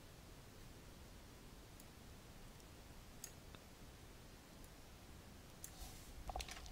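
Near silence: faint room tone with a few soft computer mouse clicks, one about three seconds in and several near the end.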